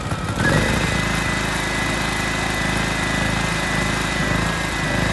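Bajaj-M 5000 PS portable petrol generator running just after being pull-started: about half a second in it picks up to a steady speed and then runs evenly, a hum with a steady high whine over it.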